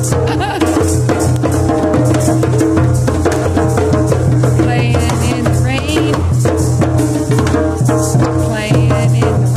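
Several djembes played by hand together in a drum circle, a dense, steady rhythm of hand strikes.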